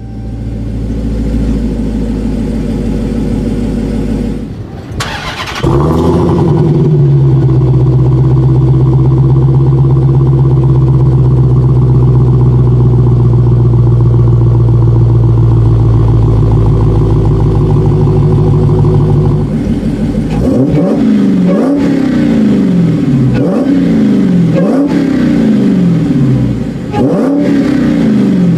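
Dodge Challenger SRT Demon's supercharged V8 started about five seconds in with a sharp flare, then settling into a loud, steady idle. From about twenty seconds in it is revved over and over, the pitch rising and falling roughly every second and a half.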